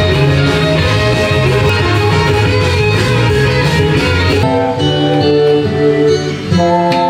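Background music led by guitar, a full band sound that drops to sparser held notes about four and a half seconds in.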